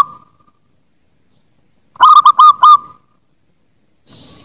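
Zebra dove (perkutut) cooing: one short phrase of about five quick, clipped notes about two seconds in, just after the last note of a previous phrase dies away at the start.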